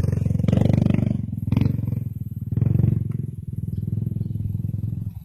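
Dirt bike engine running at low speed on a trail, with the throttle blipped in several short surges over the first three seconds. It then settles to a steadier, lower run and drops away near the end.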